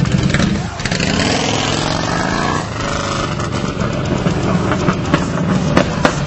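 Yamaha Midnight Star 1300 V-twin through a Big Gun aftermarket exhaust, accelerating away. The revs rise, drop at a gear change about two and a half seconds in, and then pull on again.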